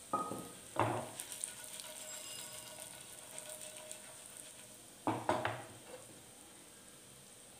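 Cumin seeds and whole spices (cinnamon, green cardamom, black peppercorns) sizzling in hot mustard oil in a nonstick pan, with a few sharp ringing metal clanks as the spices are stirred: two near the start and two about five seconds in.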